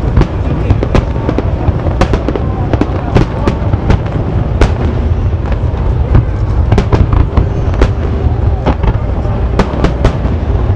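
Aerial firework shells bursting in a rapid barrage: many sharp bangs, often several a second, over a continuous low rumble of booms.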